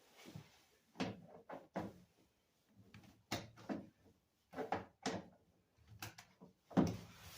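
A car door and its interior door panel being handled: a string of about a dozen short, sharp knocks and clacks, some in quick pairs, with pauses between.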